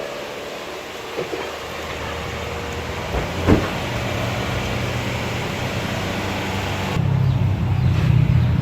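A vehicle engine running, building gradually and growing clearly louder about seven seconds in, with a single sharp knock near the middle.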